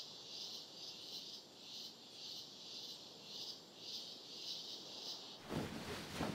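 Crickets chirping in a steady high pulsing rhythm, about two pulses a second. Near the end they give way to a louder rustling of bedclothes.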